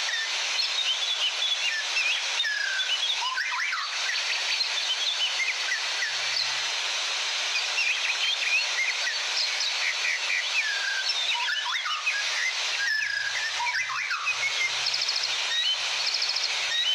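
Many forest birds chirping and whistling in short overlapping phrases, with a few rapid trills near the end, over the steady rush of a waterfall.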